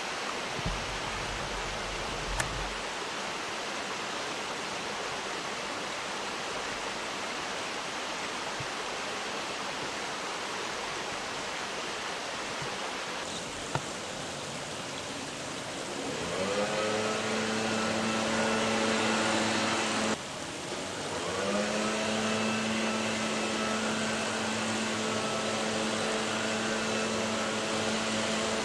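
Steady rushing outdoor noise. About halfway through, a motor's steady hum rises in, cuts off abruptly, then starts again a second or so later and runs on.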